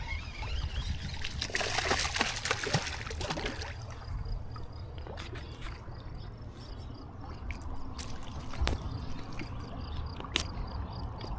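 River water splashing and sloshing, loudest from about one and a half to three and a half seconds in, with scattered sharp clicks over a low rumble.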